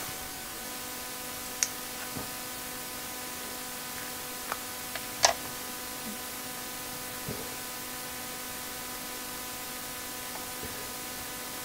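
Steady electrical hum and hiss, with a few sharp clicks and taps from chips and a card being handled on a computer circuit board, the loudest about five seconds in.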